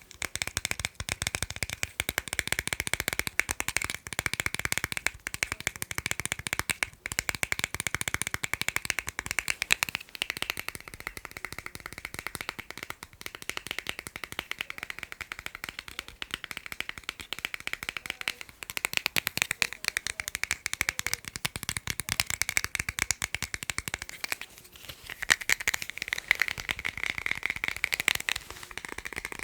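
Fast, continuous tapping on a hard object: a dense stream of quick clicks with short breaks about seven seconds in and again near the end.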